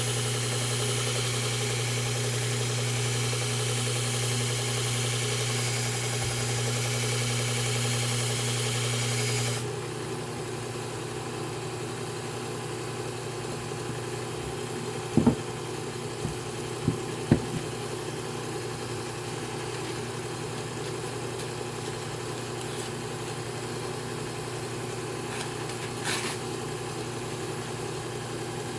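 Belt sharpener running with a garden tool's blade held to the belt: a steady motor hum under a high grinding hiss. About ten seconds in the grinding stops and a lower steady hum carries on, with a few sharp clicks a few seconds later.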